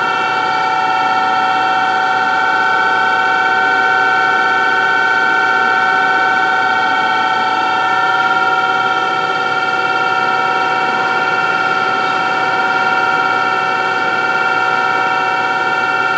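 Spindle of a 2012 DMG Mori Dura Vertical 635 Eco CNC vertical machining center running at 2000 RPM: a steady whine of several pitches held level, without load.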